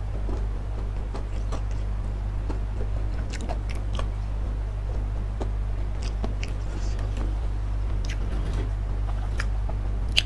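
Close-miked chewing of food in the mouth: scattered small wet clicks and crunches, over a steady low hum. One sharp click comes near the end.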